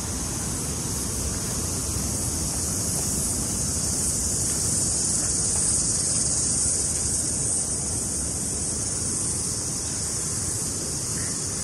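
Steady high-pitched insect chorus over a low, rough rumble of outdoor noise, swelling slightly about halfway through.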